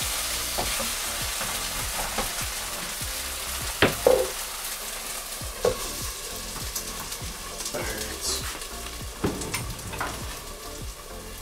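Beef curry sauce sizzling in a frying pan on a gas hob as it is stirred, a steady hiss. A few sharp knocks of the utensil on the pan break through it, the loudest about four seconds in.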